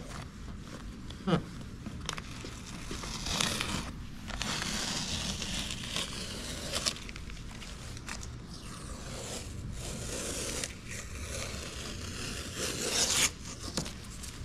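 Blue masking tape being handled on a car's quarter glass: several stretches of ripping and rubbing noise as tape is pulled and smoothed down by hand. There is a sharp click at the start and another about a second later.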